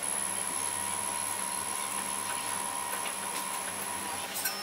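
Xhorse Dolphin XP005 key cutting machine's motors whining steadily as its probe traces the original key during key learning. The whine stops near the end, with a couple of light clicks.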